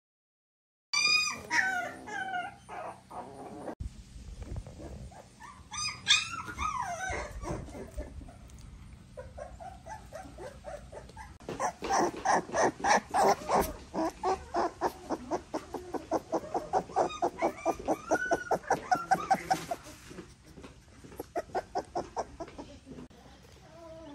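Young American Staffordshire Terrier puppies whimpering: a few drawn-out, falling whines early, then a long run of rapid short squealing yelps, about four a second, lasting some eight seconds before they fade.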